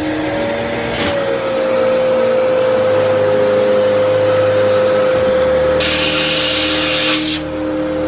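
Kärcher WD3 wet and dry vacuum cleaner running, with a steady motor whine that briefly rises and falls in pitch about a second in. A brighter hiss of rushing air joins for a second or so near the end.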